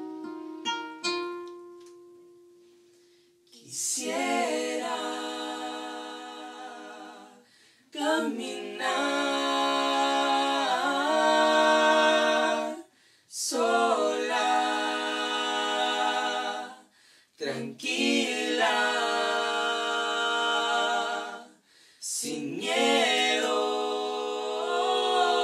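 A few plucked acoustic guitar notes ring and fade over the first couple of seconds. Then a woman's voice sings unaccompanied in five long, held phrases, each a few seconds long with short breaths between them.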